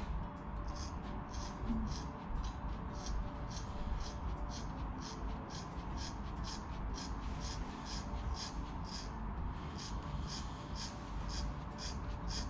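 Scissors snipping steadily through a thick bunch of long hair, about two short snips a second.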